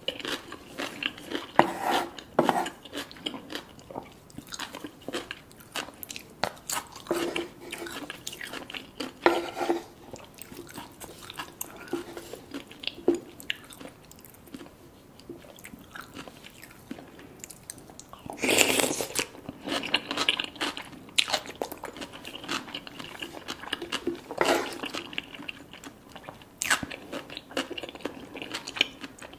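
A person biting and chewing crunchy food close to the microphone: a string of short, sharp crunches and wet chewing, with a longer, louder crunching burst about two-thirds of the way through.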